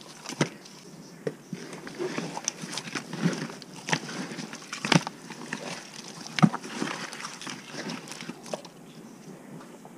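Whole redear sunfish being tossed by gloved hands in a plastic tub to work in the seasoning: irregular wet slaps and knocks of fish against each other and the plastic, loudest about five and six and a half seconds in, dying down near the end.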